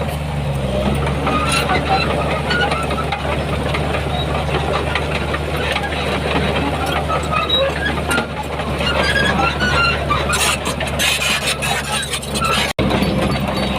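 Diesel engine of heavy earthmoving machinery running steadily under load, with short squeaks and clanks scattered over its low drone.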